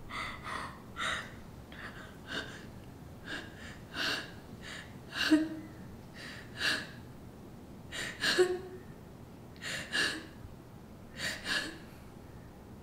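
A woman crying: well over a dozen short, uneven sobbing breaths, two of them with a brief catch in her voice.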